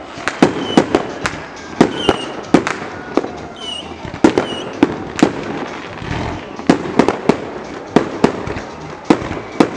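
Fireworks going off in a rapid, irregular run of sharp bangs, about two a second.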